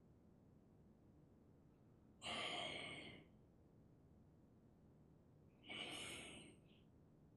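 Two long audible exhalations, each about a second long and fading out, about three and a half seconds apart, over near-silent room tone.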